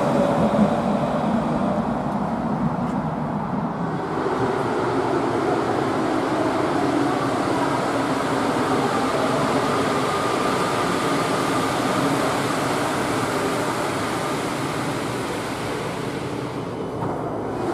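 A low-floor tram moving at the platform for the first few seconds, then a Lyon Metro MPL85 rubber-tyred train running into an underground station and slowing to a stop: a steady rolling rumble with a faint whine midway, easing off towards the end.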